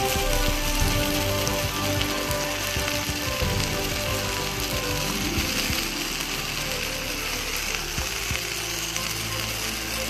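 Oil sizzling steadily in a wok where fried tilapia sits on sautéed tomatoes, onion and chili, with background music.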